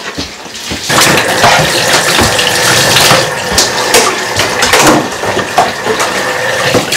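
Kitchen tap running into a sink, starting about a second in and going on steadily, with a few sharp knocks of utensils on top.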